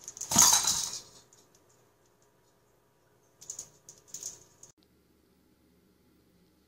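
Clattering and clicking of plastic cat toys as a kitten bats at them, with a loud burst in the first second and a few quicker clicks around four seconds in.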